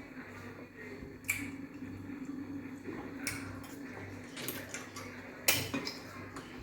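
Eating at a table, with four sharp clinks of dishes or cutlery, the loudest about five and a half seconds in, over a steady low hum.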